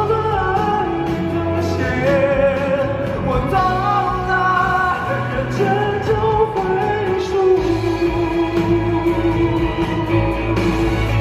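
Pop song with a singer holding long, wavering notes over a band backing; one note is held for several seconds near the end.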